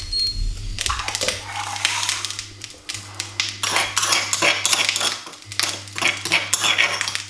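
Metal spoon scraping and tapping against the inside of a stone mortar as ground spice paste is scooped out: a run of quick, irregular scrapes and clicks starting about a second in.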